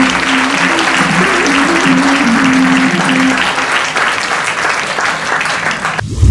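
Theatre audience applauding, with the last held notes of the dance music fading out about a third of the way in. The clapping cuts off abruptly just before the end, replaced by a low boom.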